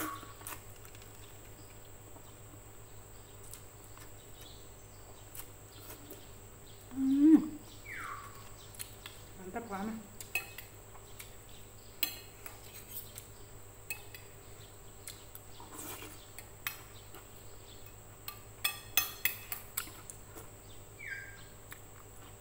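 Metal spoon and fork clinking and scraping against a plate while eating noodle soup, with scattered clinks and a quick run of them near the end. One louder, short burst comes about seven seconds in.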